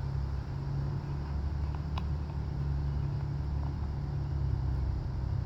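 Steady low rumble, with one faint click about two seconds in.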